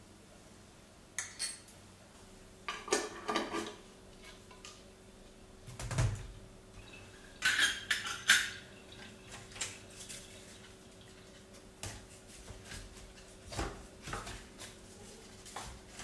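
Light clinks and knocks of small metal and glass items being handled and set down on a countertop: a metal measuring cup and scoop and glass jars, in a few short clusters, with one duller thud about six seconds in.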